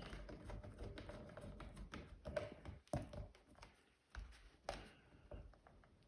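Faint scattered clicks, taps and scrapes of a screwdriver and hands snugging the screws on a wallpaper-covered switch plate, pressing the plate in so the paper does not tear.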